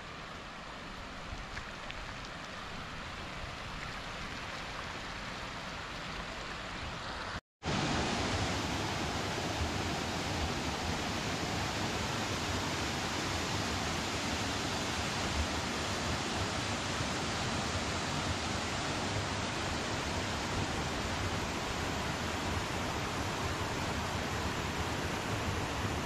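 Waterfall, steady rushing water that grows gradually louder over the first seven seconds. A brief dropout to silence follows about seven and a half seconds in, and then the rushing is louder and steady.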